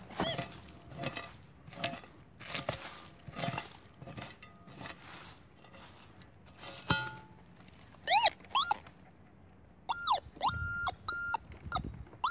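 Several sharp strikes of a hand digging tool into leaf-littered forest soil. From about eight seconds in, a metal detector gives a string of warbling, rising-and-falling beeps as its coil passes over a buried metal target, a coin.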